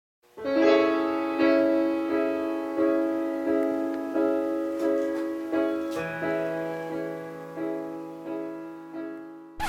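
Piano music: sustained chords struck about once every 0.7 seconds, each note decaying before the next. A lower bass note enters about six seconds in.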